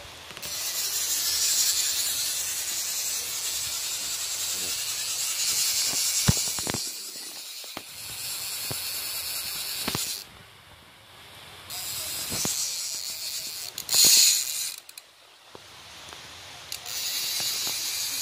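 Heavy rain hissing steadily, with a fishing reel's ratchet clicking now and then as sharp single clicks. The rain hiss drops away twice for a second or two.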